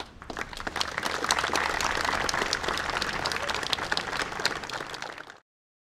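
Audience applauding, many people clapping together; the applause builds over the first second and cuts off suddenly a little over five seconds in.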